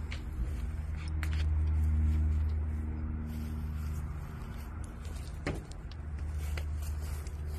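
A steady low mechanical hum that swells briefly about a second in, with a few scattered clicks and knocks, the sharpest past the middle.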